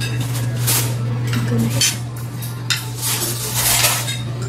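Spoons and forks clinking and scraping on plates as food is served and mixed, with a longer stretch of scraping near the end, over a steady low hum.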